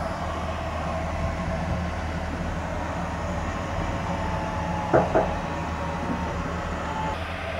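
Steady low background hum, with two short sharp sounds about half a second apart roughly five seconds in.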